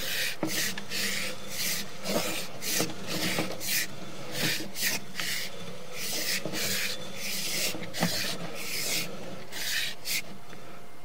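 Push cable of a sewer inspection camera being fed by hand into a 4-inch ABS cleanout, rasping with each push about twice a second, with a few sharp clicks; the strokes stop near the end as the camera reaches standing water.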